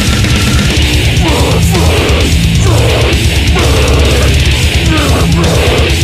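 Loud extreme metal music: distorted guitars over dense, heavy drumming.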